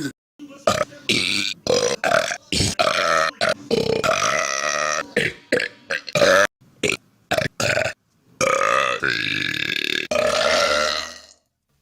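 Loud human burps: a quick run of short belches, then two long drawn-out burps near the end.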